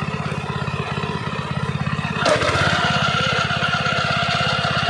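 ASIA hand tractor's gasoline engine running steadily. A little over two seconds in there is a clunk, then a steady whine joins and the running grows louder as the implement drive is engaged with the wheels in neutral.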